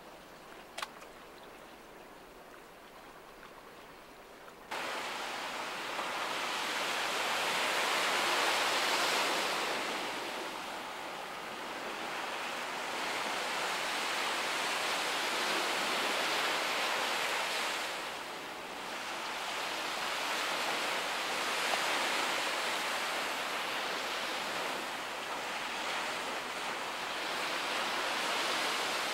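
Sea surf washing against a breakwater: an even hiss that comes in abruptly about five seconds in, then swells and eases every few seconds.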